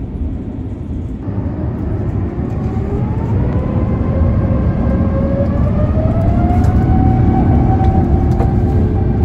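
Airbus A350's Rolls-Royce Trent XWB jet engines spooling up to takeoff thrust, heard inside the cabin: a whine that rises in pitch and levels off near the end, over a deep rumble that grows louder.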